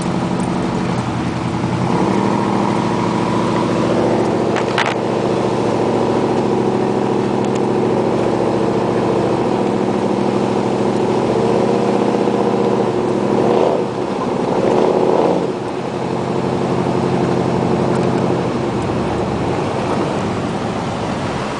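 A 4x4 truck's engine running while driving, a steady drone that shifts in pitch a few times as the truck speeds up and eases off. There is a sharp click about five seconds in.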